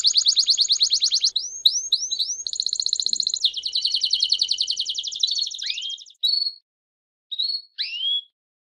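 Domestic canary singing: long, very fast trills of high notes, broken by a few upward-slurred notes. After about six seconds the song thins to a few short separate calls with pauses between them.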